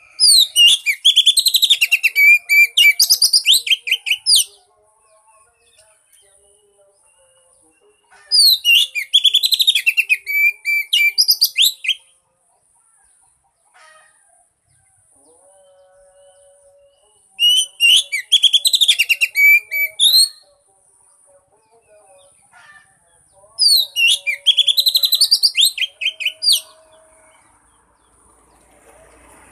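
Oriental magpie-robin (kacer) song in four bursts of rapid, varied high notes, each about three to four seconds long with pauses between. It is a lure song meant to set a silent magpie-robin singing.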